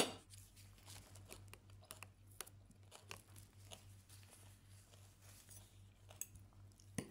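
Close-miked eating: quiet chewing with soft crunches and small mouth clicks as chicken curry and salad are eaten, with a sharp click at the start and another near the end. A low steady electrical hum runs underneath.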